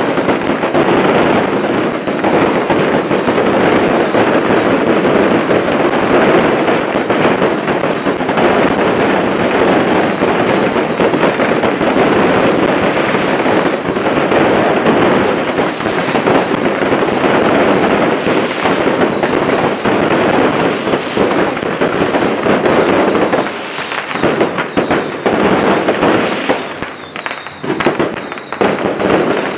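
Fire lion fireworks going off at close range: a dense, unbroken crackle of firecrackers and sparking fireworks. In the last few seconds it thins out into separate bangs and pops.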